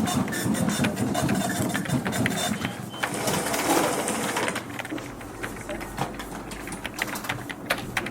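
Office fax machine running with a rapid mechanical rattle that stops about four to five seconds in, followed by scattered clicks of keyboard typing.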